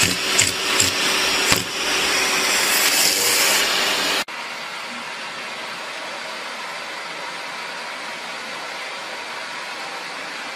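Vacuum cleaner running steadily as its brush nozzle is drawn over a cat's fur. Before it, for about the first four seconds, a loud rhythmic pulsing of about three beats a second cuts off abruptly.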